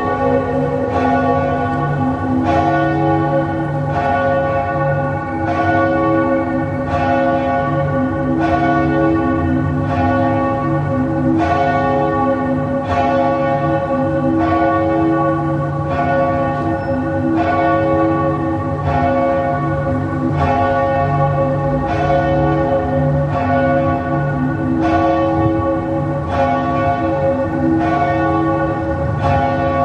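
Church bells tolling, struck at an even pace of roughly one stroke every second and a bit, each stroke ringing on into the next. It is a mournful toll of the kind rung as a death knell.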